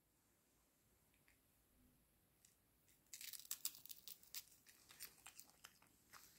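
Small dog nibbling and biting at a dried capelin held in a person's fingers: a run of dry crackles and crunches starting about three seconds in, after a near-silent start.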